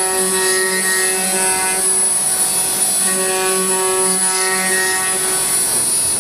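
HG-1530 ATC CNC router spindle cutting a wooden board: a steady pitched whine over a hiss, which weakens twice and comes back at the same pitch.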